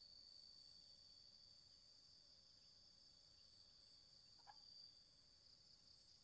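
Near silence with a faint, steady, high-pitched insect chorus, with a brief faint sound about four and a half seconds in.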